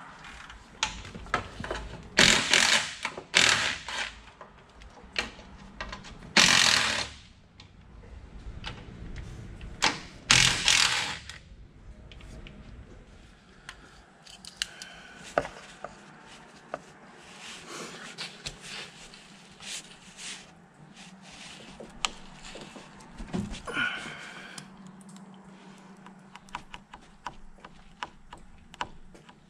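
Hand tools and metal parts clicking, knocking and scraping during repair work on a truck's front end, with a few loud scraping bursts in the first dozen seconds.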